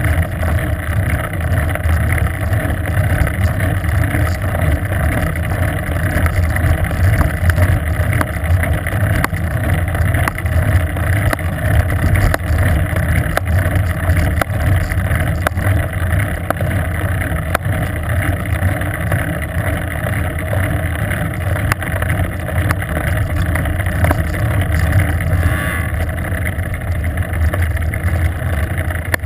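Steady wind rush on the camera microphone with a low road rumble, from a bicycle coasting fast downhill on asphalt.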